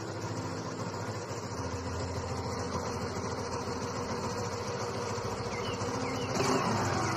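Small single-cylinder engine of a Hero Maestro scooter running steadily as it is ridden along, with a few short high chirps near the end.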